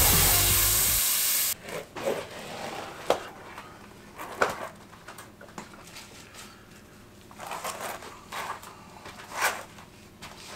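Background music cuts off about a second and a half in. After that come intermittent short rubbing and scrubbing sounds as soapy water is lathered onto a mountain bike tire's bead, with an occasional dip into a bowl of soapy water.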